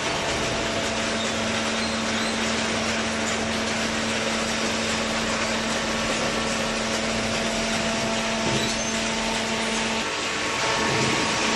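Hydraulic cardboard baler running, its motor and pump giving a steady hiss with a constant hum; a brief knock comes about eight and a half seconds in, and the hum drops out briefly near the end.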